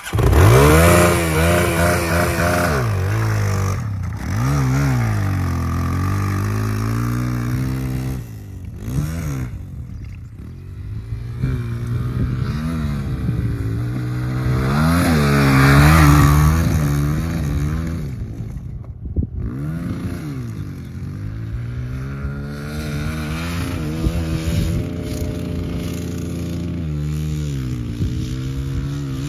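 Kawasaki 140 dirt bike's single-cylinder four-stroke engine revving up and down over and over as it is ridden fast through a series of rollers, with the throttle opening and closing over each bump. The revs drop off briefly a few times.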